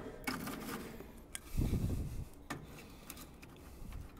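Split firewood being laid into the steel firebox of an offset smoker, onto a bed of charcoal: wood scraping and light knocks, with a duller thump a little under two seconds in.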